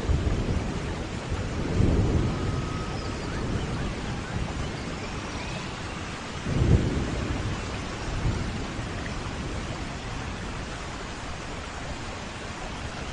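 Thunderstorm in a forest: steady rain with rolling thunder, a low rumble about two seconds in and a sharper, louder clap near seven seconds that rumbles away.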